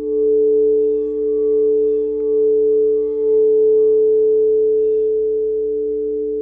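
Meditation background music: a sustained ringing drone of two low steady tones with fainter higher ones, swelling and easing gently every second or so.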